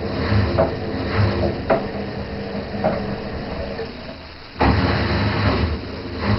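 Washing machine running: a steady motor hum with a low thud or swish recurring about every 0.6 s. The sound dips for a moment a little after four seconds in, then comes back suddenly and louder.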